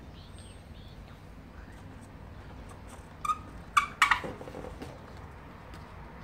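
Inflated latex balloon squeaking under a hand pressing and rubbing on it. There are three squeaks a little past halfway: two short ones, then a louder, longer one.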